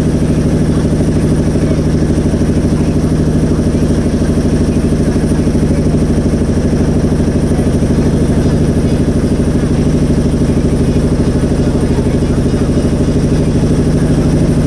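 Motorboat engine running steadily at constant speed, a loud even hum with a fast regular pulse.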